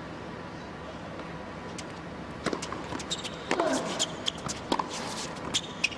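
A hushed indoor arena, then a tennis serve and rally on a hard court from about two and a half seconds in: sharp racquet strikes on the ball and ball bounces in quick succession.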